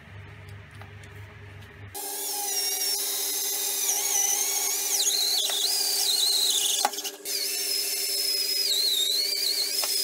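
Cordless drill with a spade bit boring a hole, starting about two seconds in: a steady motor whine under a high, wavering squeal from the bit cutting, with a brief dip near seven seconds.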